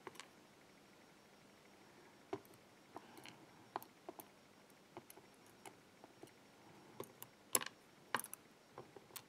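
Faint, scattered clicks and ticks of steel tweezers picking at the small pins of a disassembled pin-tumbler lock cylinder, with a few louder clicks near the end.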